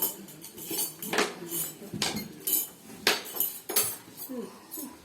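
Cutlery and dishes clinking at a table, a run of sharp clinks roughly two a second.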